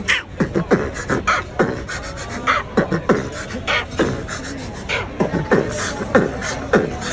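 A man beatboxing: a steady, quick rhythm of deep kick-drum thumps made with the mouth, with sharp hi-hat-like clicks and snares in between.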